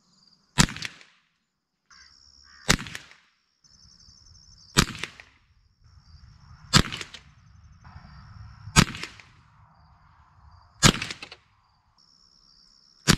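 Ruger 10/22 semi-automatic .22 LR rifle firing seven shots, about one every two seconds, each a sharp crack with a short tail: a group fired to sight in a newly mounted scope. A faint steady insect whine runs underneath.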